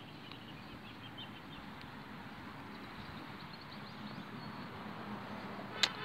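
Outdoor ambience of a steady background hiss with small birds chirping faintly now and then, and one sharp click near the end.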